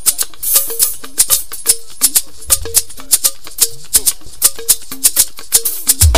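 Instrumental highlife music with no singing: a shaker keeps a busy, steady rhythm over a repeating figure of short notes, with a deep drum thump about two and a half seconds in and another near the end.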